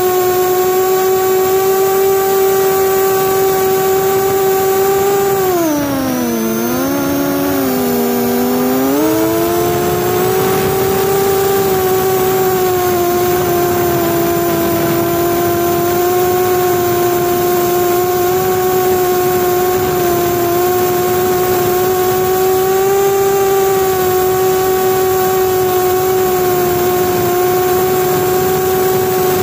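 Explorer LR FPV quadcopter's motors and propellers whining steadily in flight, with rushing air. About six seconds in the whine drops in pitch and wobbles for a few seconds as the throttle is eased, then climbs back to a steady pitch.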